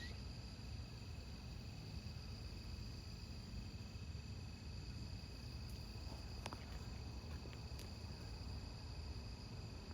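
Crickets chirring steadily in a night-time chorus, a continuous high trill. There are a couple of faint clicks a little past halfway.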